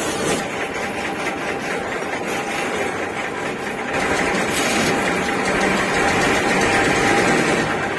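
Bus engine running as the bus drives, heard from inside the cabin, getting a little louder in the second half.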